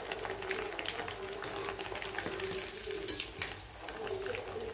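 Masala-coated fish pieces frying in hot oil: a steady sizzling, dotted with sharp crackles and pops from the oil.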